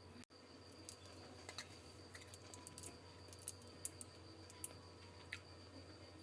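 Faint scattered clicks and light taps, a handful spread through, from handling a plastic glue bottle and bowl while the glue is poured, over a low steady background hum.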